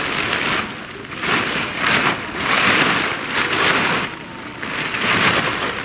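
Synthetic tent fabric rustling and crinkling in repeated bursts as it is pulled out of its stuff sack and shaken out onto the grass.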